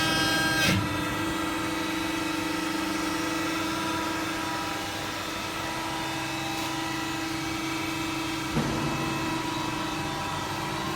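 CNC servo press brake running with a steady machine hum, with a brief knock shortly after the start and another about eight and a half seconds in.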